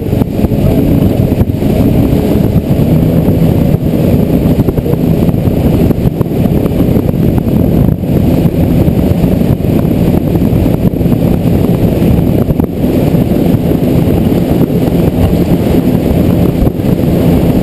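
Twin outboard motors running steadily at planing speed, a loud constant drone mixed with rushing water and wind on the microphone.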